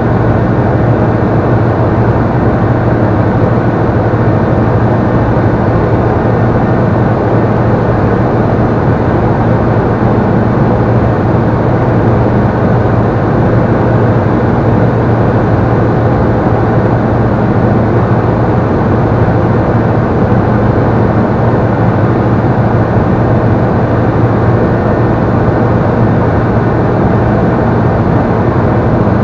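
Robin CDI light aircraft's single diesel engine and propeller droning steadily in cruise, heard inside the cockpit, with a strong low hum and no change in pitch.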